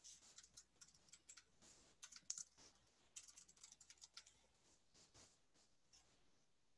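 Computer keyboard typing: faint, irregular keystrokes in quick runs, thinning out to a few scattered taps after about four seconds.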